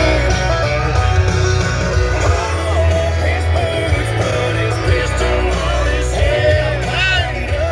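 Rock song with a singing voice and guitar over a steady heavy bass, starting right at the outset after a brief drop-out.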